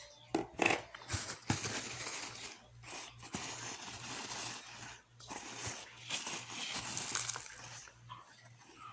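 Paper wrapping crinkling and rustling in irregular crackles as a paper-wrapped plant is unwrapped by hand.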